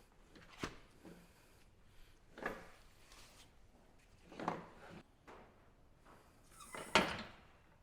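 Four separate clunks about two seconds apart, the last one the loudest: an engine hoist being rigged and worked to lift a transmission.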